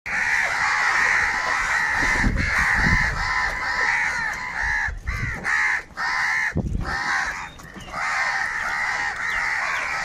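A flock of house crows cawing all at once, many harsh calls overlapping into a continuous din, with a few brief lulls in the middle.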